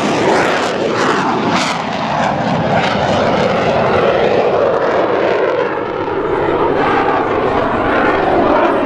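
Jet-powered Waco biplane climbing steeply away under power: its Pratt & Whitney R-985 nine-cylinder radial engine and propeller running together with its General Electric CJ610 turbojet. The pitch falls over the first two seconds as it passes, then the sound holds steady and loud.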